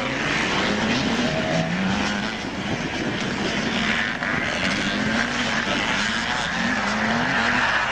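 Vintage 250cc two-stroke motocross bikes racing. Their engines rev up in a series of rising pitches, falling back between each, as the riders open and close the throttle through the turns.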